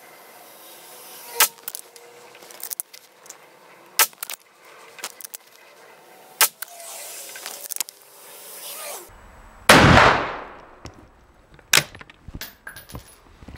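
Belgian M1871 Comblain single-shot black-powder rifle fired once, about ten seconds in: a sharp report with a short echoing tail in an enclosed range. A few fainter sharp cracks come before it, and quick metallic clicks follow as the falling-block breech is opened with the lever.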